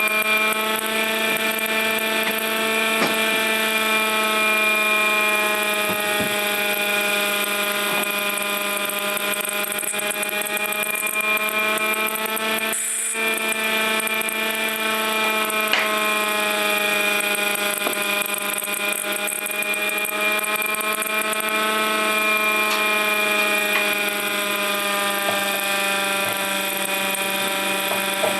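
MiniMite electric air raid siren running, its motor at full speed while the cracked chopper slips on its split shaft and lags behind: a steady siren tone whose pitch wavers slowly, over a steady low hum.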